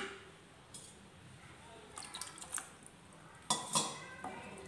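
A wooden spatula knocks and scrapes in an aluminium pot of thick greens-and-lentil kootu coming to the boil, with wet plops from the thick mixture. There is a sharp knock at the start, scattered small ticks, and two louder knocks about three and a half seconds in.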